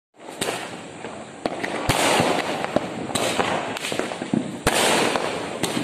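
Fireworks and firecrackers going off: a string of sharp bangs over continuous crackling and hiss.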